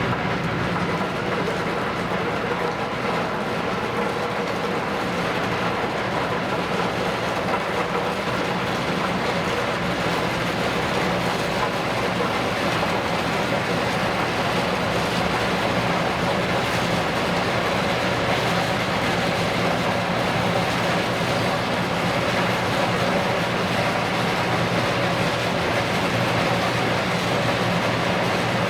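Steady low drone of a ship's engine and machinery, running evenly at slow speed with no change in level.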